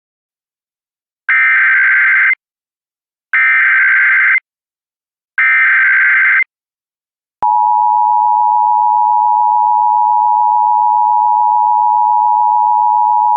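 Emergency Alert System tones for a Child Abduction Emergency (AMBER alert). First come three short bursts of the screeching digital SAME header, each about a second long. After a click, a long steady attention tone starts.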